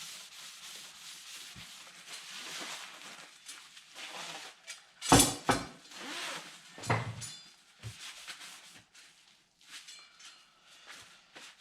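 Oil being rubbed onto a CNC router's spoil board, a rough scrubbing noise in uneven strokes, with a couple of sharp knocks about five and seven seconds in.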